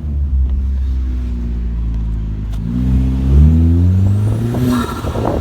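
2010 Hyundai Genesis Coupe's turbocharged 2.0-litre four-cylinder running, then revving up with a faint rising turbo whistle. Near the end the throttle closes and there is a brief rush of air, the start of the turbo flutter (compressor surge) that comes from the blow-off valve being blocked off with a plate.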